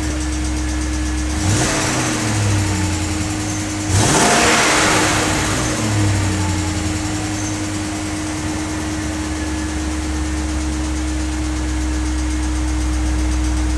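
BMW engine idling, revved twice: a short blip about a second and a half in and a bigger rev at about four seconds, each falling back to a steady idle.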